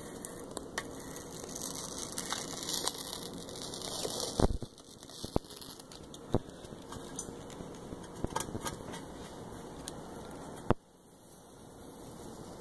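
Transfer paper being peeled slowly back off a vinyl decal, a continuous crackling rustle for the first four seconds or so. After a thump it turns to scattered crinkles and light ticks as small pieces are pulled off.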